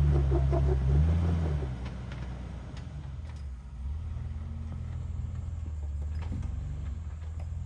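Off-road Jeep's engine working under load as it crawls a steep rock obstacle: loud at first, swelling briefly about a second in, then dropping to a lower, steady run. A few faint clicks sound over it.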